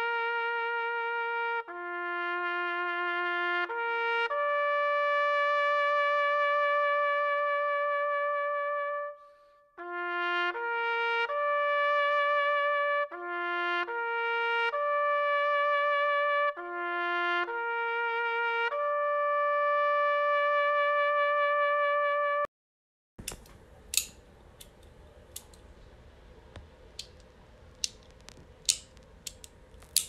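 A solo instrumental melody, one note at a time in slow phrases with vibrato on the held notes. It stops abruptly about two-thirds through. After a moment of silence comes quiet room noise with a few sharp, irregular clicks.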